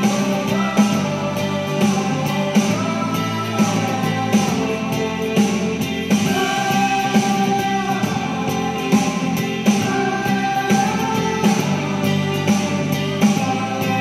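Background instrumental music: a guitar-led tune with a melody over a steady beat.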